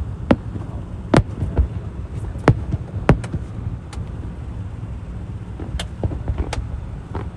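Fireworks exploding overhead: sharp bangs at irregular intervals over a steady low rumble.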